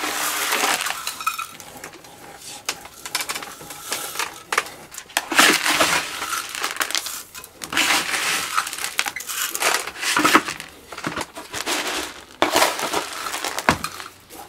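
Granular bonsai substrate rattling and crunching, first poured from a metal scoop into the pot, then jabbed and worked in around the ficus roots with a chopstick to settle it and leave no air pockets. Irregular gritty rustles and clicks in uneven bursts.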